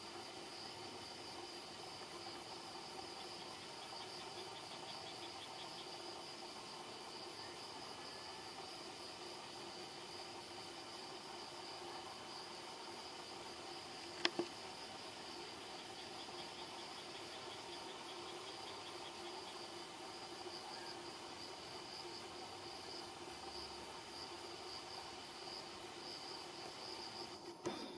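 Steady chorus of singing insects, with a faint rapid ticking now and then. A single sharp click about halfway through.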